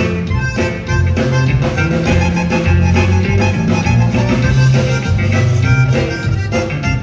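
Live conjunto music: a button accordion playing the melody over a guitar, with a moving bass line and a steady beat.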